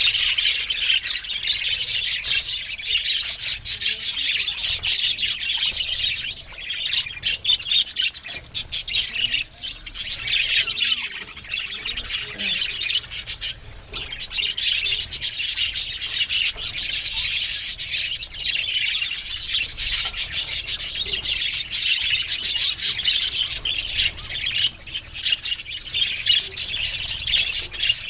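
A flock of budgerigars chattering: a dense, continuous mix of warbles, chirps and rapid clicky notes, thinning briefly now and then.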